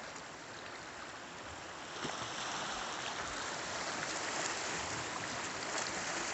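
Sea water washing and lapping among the rocks at the shoreline, a steady wash that grows a little louder about two seconds in.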